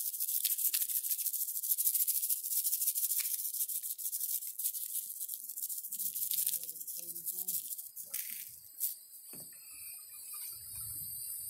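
A spice shaker rattling as seasoning is shaken over raw steaks, a busy dry rattle that stops about eight seconds in. After that, insects drone steadily at a high pitch.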